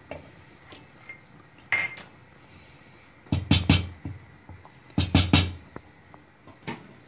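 Wooden spoon knocking against a stainless steel cooking pot: a single clatter about two seconds in, then two quick sets of three knocks on the pot, as when the spoon is tapped on the rim to shake off the broth.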